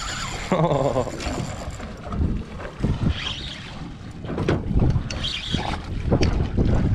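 Wind buffeting the microphone aboard a small aluminium fishing boat, with several sharp knocks against the boat and a drawn-out vocal call about half a second in.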